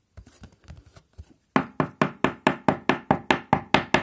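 A rapid, even run of about a dozen sharp knocks on a hard surface, about five a second, starting about a second and a half in, after a few faint handling clicks.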